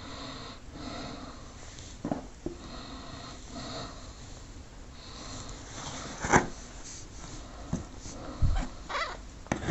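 Newborn kitten making faint, wheezy, repeated little cries. Over it come knocks and rustles as towels are handled in a cardboard box, the loudest knock about six seconds in and a cluster of them near the end.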